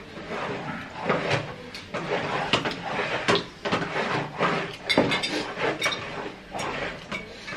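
Spoons and chopsticks clicking and knocking against ceramic bowls as several people eat momos at a table, in irregular small clatters.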